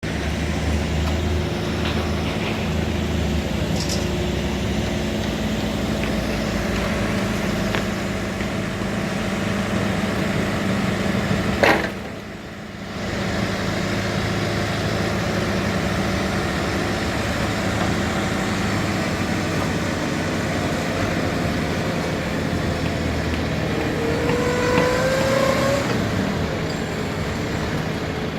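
Telehandler's engine running steadily, with a brief sharp click and short drop in level about twelve seconds in and a short rising whine near the end.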